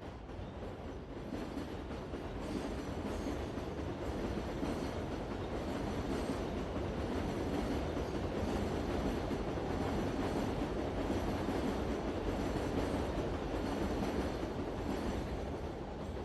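Metro train running on the rails, a dense steady rumble that grows louder over the first few seconds, holds, then eases off near the end.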